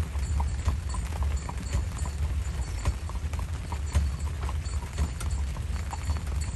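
Horse's shod hooves clip-clopping on a paved road in an even rhythm while pulling a carriage, over a steady low rumble.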